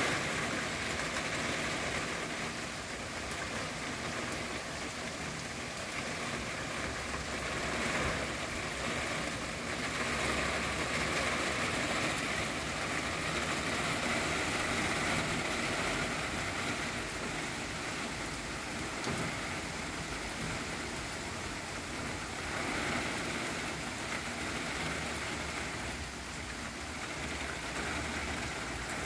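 Heavy rain falling steadily, heard from under a fabric awning, with gentle swells in intensity.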